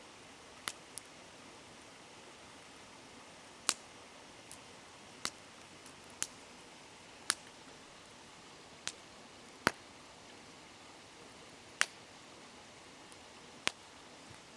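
Campfire wood crackling: about a dozen sharp pops at irregular intervals over a steady faint hiss of a flowing river.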